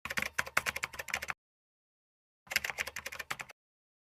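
Two quick bursts of computer keyboard typing, a rapid run of keystroke clicks, then a second shorter run about a second later.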